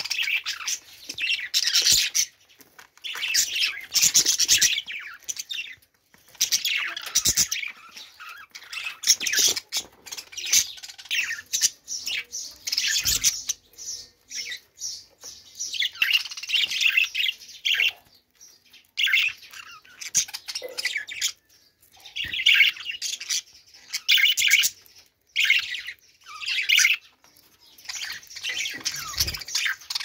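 A flock of budgerigars chattering and chirping in bursts of a second or two, with short pauses between.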